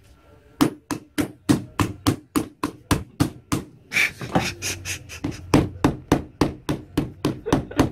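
Rapid series of sharp taps, about three or four a second, as a Phillips screwdriver is struck again and again against an iPhone 5s screen covered by a Liquipel protective skin: an impact test of the screen protector. The tapping starts about half a second in.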